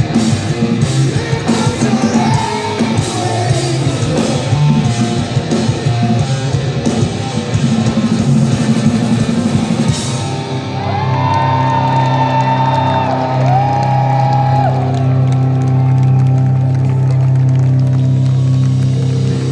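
Live hard-rock band playing at full volume, with drums and crashing cymbals under distorted guitars. About halfway through the drums stop and a held chord rings on, with wavering higher notes over it, as the song winds down to its ending.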